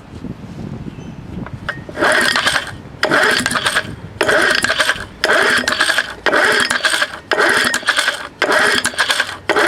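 Recoil starter of a Craftsman chainsaw being pulled over and over, about eight rattly pulls roughly a second apart starting about two seconds in. The engine turns over without firing: the one-cylinder saw has no spark.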